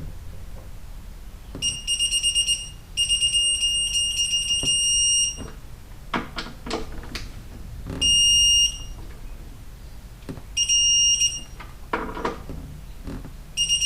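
Electronic torque wrench beeping as the caliper bolts are pulled up to the set 20 foot-pounds. A run of short high beeps gives way to one long steady beep about three seconds in, followed by shorter beeps later on. A few knocks of tool on metal fall between the beeps.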